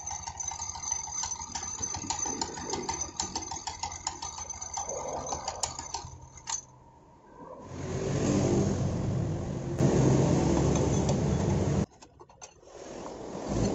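Honda Genio scooter's exposed CVT running: the engine turns the drive pulley, belt and clutch with a fast metallic jingling rattle and clatter. The mechanic takes these for a loose ring on the clutch assembly and a stretched, unsteady drive belt. About six seconds in the sound dips briefly, then the engine runs louder for about four seconds and cuts off suddenly.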